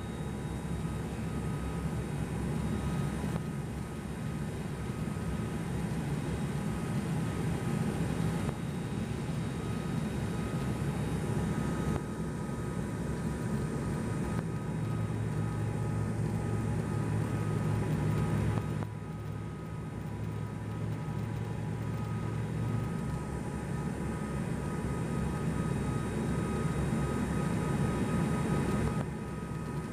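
Cabin noise of an ATR 72-200 turboprop airliner on approach: the steady drone of its propellers and Pratt & Whitney PW124B engines, with a thin steady high tone above it. The drone eases slightly about two-thirds of the way through and again at the very end.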